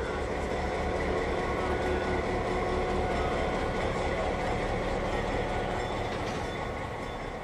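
Diesel locomotive rolling slowly past with its engine running steadily, growing louder and then fading as it goes by.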